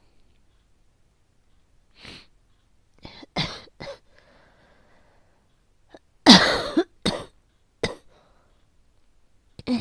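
A woman's asthmatic coughing: a quick run of three coughs about three seconds in, then a louder, longer cough about six seconds in, followed by two shorter ones and another near the end.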